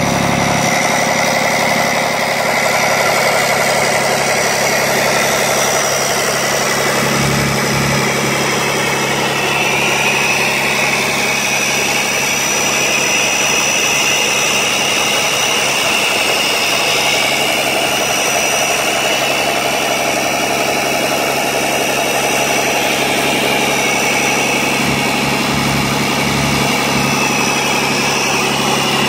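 Cummins QSB5.9 inline-six turbo diesel engine idling steadily, with a higher whine running over the engine note.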